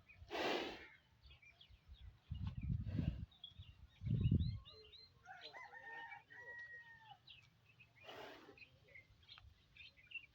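A rooster crowing once, a held call of about two seconds near the middle, with small birds chirping around it. Two louder low rumbles come about two and a half and four seconds in, and short hissing bursts come near the start and about eight seconds in.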